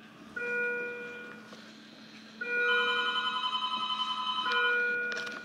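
Electronic telephone ringing: a short chiming ring, then a longer warbling ring with a fast trill from about two and a half seconds in.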